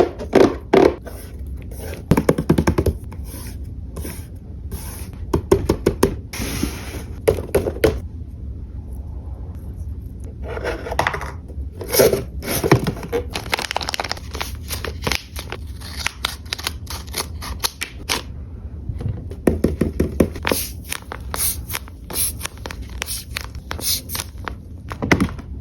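Paper crafting handled up close: scraping and crinkling of paper with sharp clicks and snips, in irregular clusters of rapid strokes.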